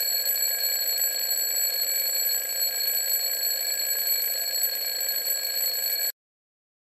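Alarm clock ringing steadily, cutting off suddenly about six seconds in.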